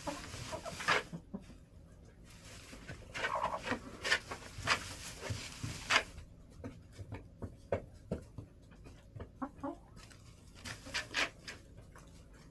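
Backyard hens clucking in short, irregular bursts, mixed with sharp clicks.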